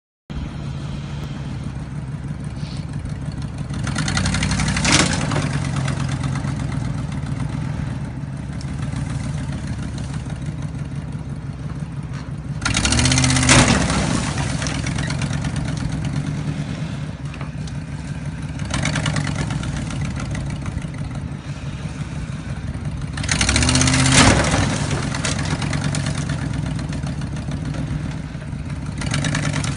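Ford F-150 pickup engine running steadily, revved up hard several times for a second or two each, roughly every ten seconds.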